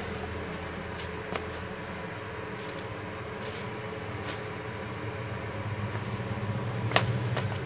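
Steady low background hum with a few faint clicks; the low drone grows a little louder in the last two seconds.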